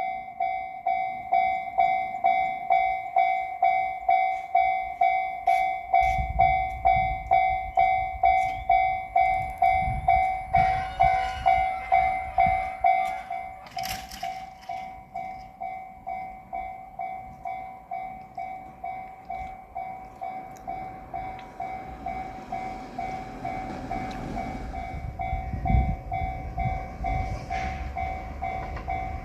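Japanese level-crossing warning bell ringing steadily at about two dings a second, softer in the second half. Under it, from about six seconds in, the low rumble of a JR Shikoku 2600 series diesel limited express train approaching and passing the crossing.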